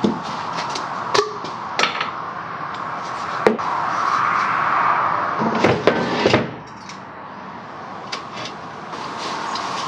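Scattered sharp knocks and clanks of tools and parts being handled during motorcycle swingarm work, with a quick cluster about six seconds in, over a steady background hum.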